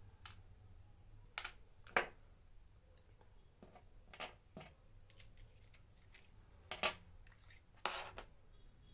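A small screwdriver and tiny metal parts clicking and clinking as the screws of an M.2 SSD enclosure are undone. The clicks are sparse, with the sharpest one about two seconds in and a short cluster near the end.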